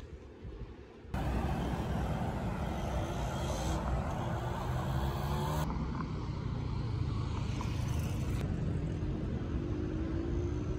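Road traffic: a steady rush of passing car tyres and engines, with an engine note slowly rising, starting about a second in.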